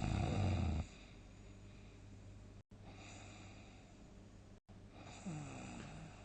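A person snoring heavily in deep sleep: one loud, rattling snore in the first second, a faint breath near three seconds, and a shorter, weaker pitched snore near the end.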